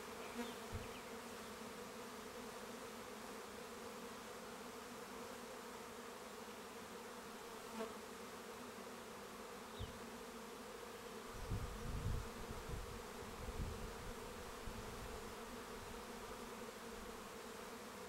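Honey bees humming around an open hive, a steady, even drone of many bees. A few low bumps break in about two-thirds of the way through.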